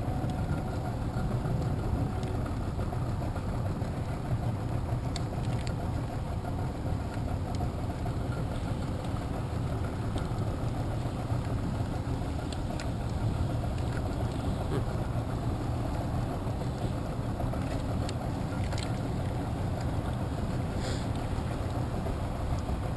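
Small boat's motor idling steadily as the boat creeps along a crab trotline.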